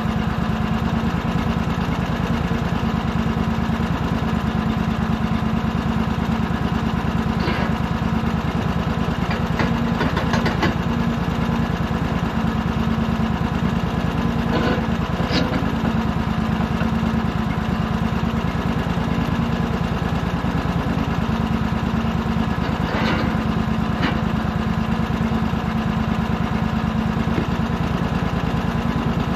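An engine idling steadily at an even pitch, with a few brief clanks or knocks over it.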